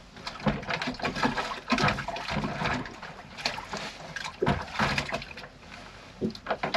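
Water splashing and sloshing in short, irregular bursts, as if being stirred or scooped by hand.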